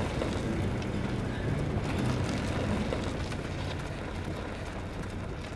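Small motorbike engine running steadily under way, a low even hum that slowly fades.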